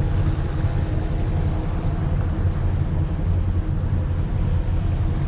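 Motorboat engine running steadily under load while towing another boat at low speed, a constant low drone with wind and water noise over it.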